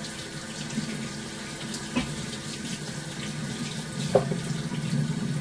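Kitchen tap running into a stainless steel sink as raw chicken wings are rinsed by hand under the stream. Two brief knocks come about two and four seconds in.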